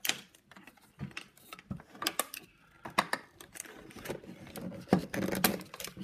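A plastic toy fridge and its small plastic pieces being handled and tipped, giving an irregular string of sharp clicks, knocks and rattles that gets busier in the second half.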